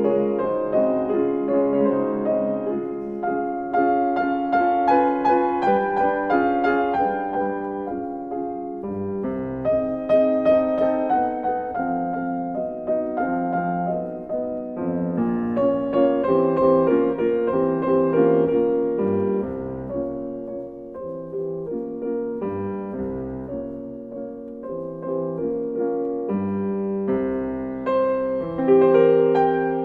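Background piano music, a gentle melody of sustained notes.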